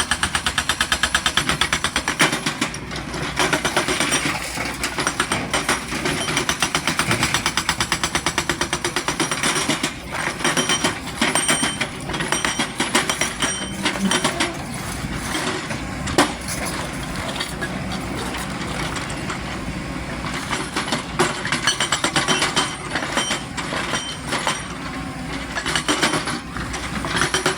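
XCMG hydraulic excavator working, its diesel engine and machinery giving a fast, even rattle, with a few sharper knocks.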